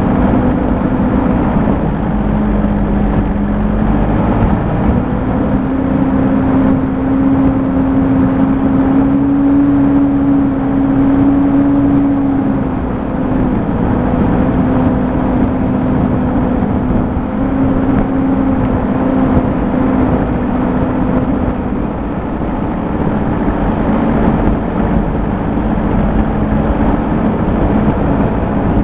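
Off-road vehicle's engine pulling along a rough dirt track, its pitch stepping up and down with the throttle over a steady low rumble.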